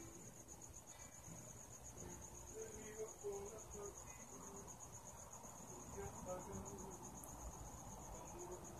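A cricket chirping steadily, a fast, even train of high-pitched pulses that never stops, heard faintly.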